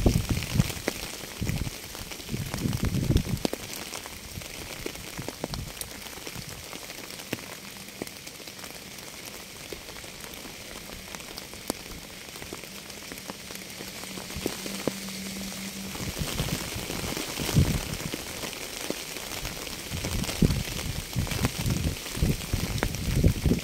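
Steady rain falling, with many separate drops ticking sharply over an even hiss. Low rumbling swells come and go at the start and again through the last several seconds.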